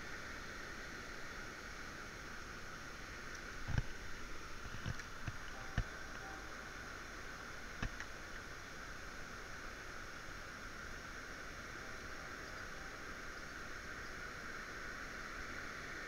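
Steady rushing of river water. A cluster of short knocks and clicks comes about four to six seconds in and another single knock near eight seconds, from handling of the fishing rod and reel.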